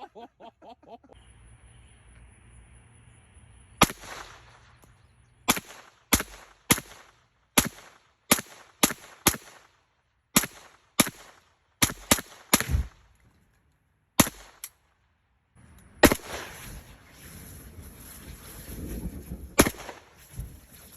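Gunshots fired one at a time, about seventeen in all, mostly half a second to a second apart with a few longer pauses. They are single shots, not full-auto bursts.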